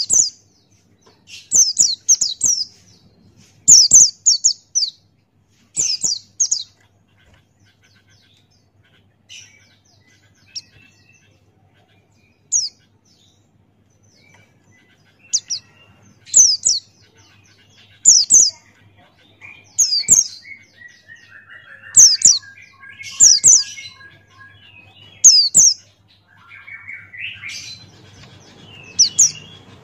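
Male pleci buxtoni white-eye singing in short phrases of high, quickly falling notes, repeated every second or two with pauses between. A faint steady low hum runs underneath.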